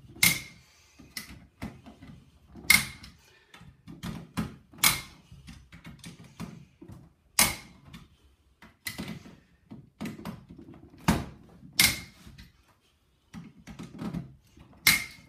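Wiha torque screwdriver set to 2.3 newton metres clicking out on the terminal screws of a main switch and RCCBs, a sharp click every few seconds with lighter handling clicks between. Each loud click is the torque clutch releasing, the sign that the terminal has reached its set torque.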